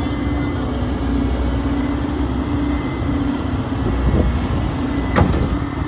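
Heavy diesel engine running steadily, with a sharp metallic knock about five seconds in.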